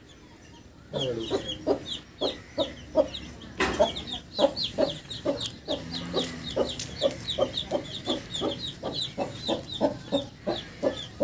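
Aseel chicks peeping rapidly and continuously while the mother hen gives short repeated clucks to her brood, starting after about a second of quiet. A single sharp click about three and a half seconds in.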